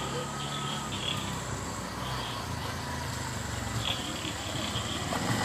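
Auto-rickshaw engine running as the three-wheeler creeps up a path, getting louder near the end as it pulls up close. Insects keep up a steady high-pitched chirring behind it.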